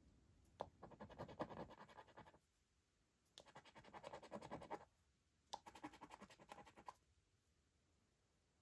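Faint scraping of a scratchcard's scratch-off coating, rubbed off in three short bursts of quick strokes to uncover the letter W in a Cashword crossword grid.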